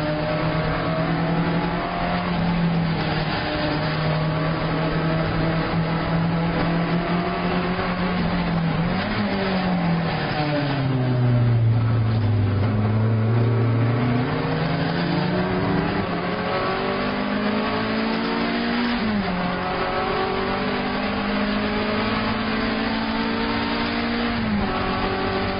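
Alfa Romeo 1750 GTV's twin-cam four-cylinder engine at racing speed, heard from inside the cabin. It holds high revs, then the revs fall as the car slows for a corner, and it accelerates hard again, with two upshifts in the second half.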